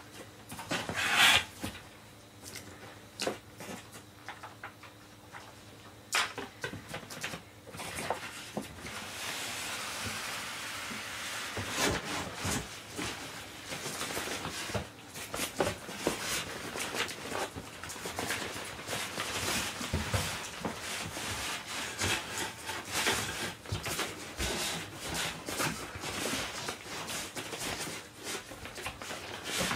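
Packaging being handled: a polystyrene foam packing shell rubbing and scraping against a cardboard box, with scattered knocks and rustles. A short louder rustle comes about a second in, and the rubbing turns near continuous after about nine seconds.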